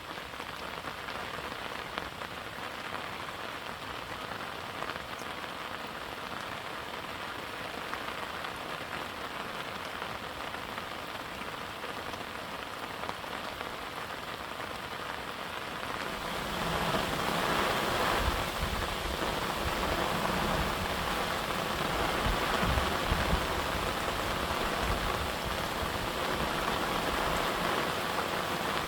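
Steady rain falling on a garden, an even hiss of drops. About 16 seconds in it becomes louder and denser, with heavier low pattering.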